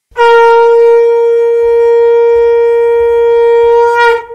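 A conch shell (shankh) blown in one long, steady, loud note that holds at a single pitch for about four seconds, then bends slightly and dies away near the end. It is the ritual conch call that opens a Durga devotional song.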